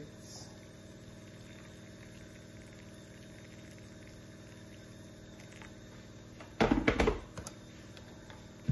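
Boiling water poured from an electric kettle onto hard stockfish fillets in a ceramic bowl, a faint steady pour. About six and a half seconds in comes a short loud clatter of knocks and clinks, with one more knock near the end.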